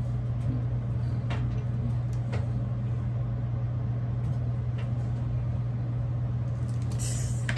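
A steady low hum with a few faint clicks and, near the end, a short hiss, as a Remington ceramic flat iron is pressed shut on straight hair and drawn down it.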